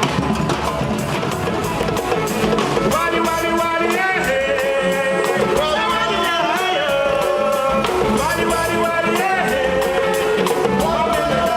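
Band music with a drum kit keeping a steady beat; a melody line, sung or played, comes in about three seconds in.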